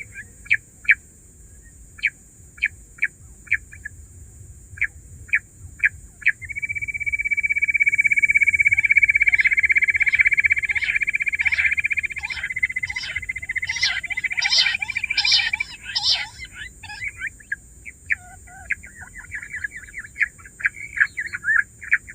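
Bush quail calling: a series of short, sharp notes spaced about half a second apart, then a long rapid trill lasting about nine seconds with other quick notes overlapping near its end, then a scatter of fast notes.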